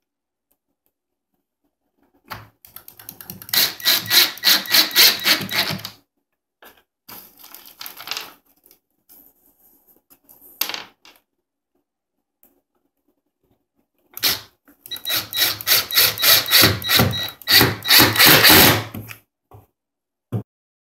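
Ridgid cordless drill driving H4 screws into fibreboard in two runs of about four and five seconds, starting about two and fourteen seconds in, its motor noise pulsing rapidly as each screw bites. Between the runs, a rustle of the screw bag and a click, and a short knock near the end.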